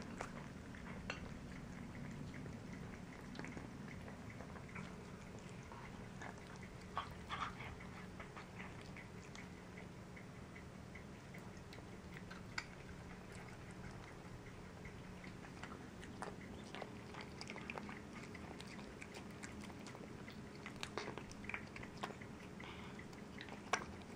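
Cats chewing raw chicken leg and thigh chunks with the bone and skin on: irregular wet smacks and sharp crunches and clicks of teeth on bone, a few of them louder, over a faint steady low hum.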